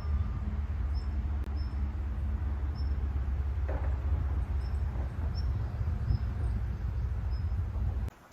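Steady low rumble with short high chirps repeating about once a second over it; it cuts off abruptly near the end.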